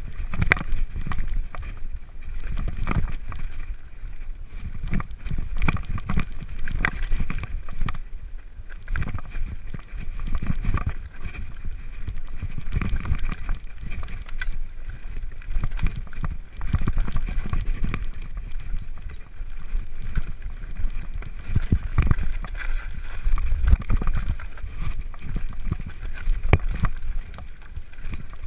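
Mountain bike riding downhill over a rough, stony trail: a steady rumble of wind on the microphone with frequent rattles and knocks as the bike and its tyres hit rocks.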